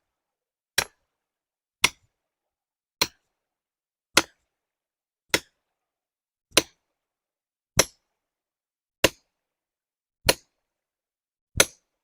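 Ten sharp, evenly spaced blows, about one every 1.2 seconds, typical of a hammer driving a felling wedge into a tree's cut to push it over the right way.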